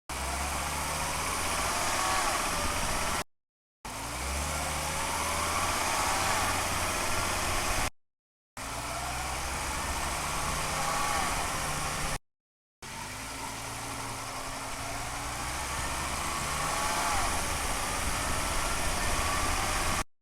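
Underbody recording of a 2005 Volvo XC90 2.5T AWD's turbocharged five-cylinder drivetrain pulling away from a stop, heard in four takes with short silences between them. Over the engine a thin whine rises and bends in pitch each time; the owner's best guess is gear whine from the transfer case or bevel gear, coming in as the revs reach 2,000 rpm on the shift into second gear.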